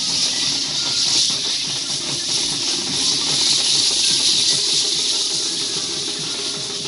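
Steady, loud hiss, with a faint murmur underneath that may be the surrounding crowd.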